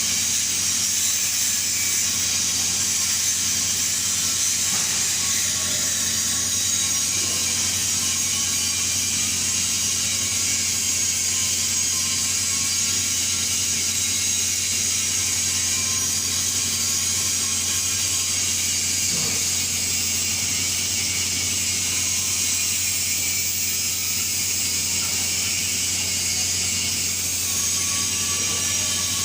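TIG (gas tungsten arc) welding arc running steadily: an even hiss with a constant low hum underneath.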